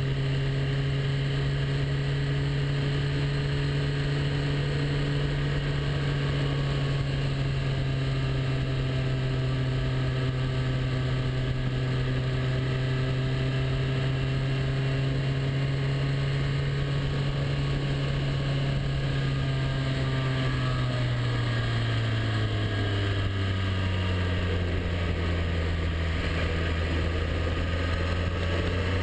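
Motorcycle engine running at steady cruising speed on the road, heard from on board, with a steady rush of wind and road noise. About twenty seconds in, the engine note falls gradually and then holds at the lower pitch.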